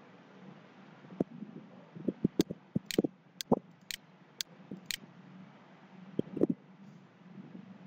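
A run of sharp computer mouse clicks, about a dozen close together between two and five seconds in and a few more about six seconds in, over a low steady hum.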